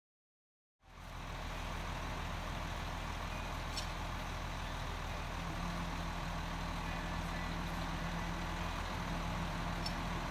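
Diesel engine of a tracked snow groomer idling steadily, cutting in suddenly about a second in.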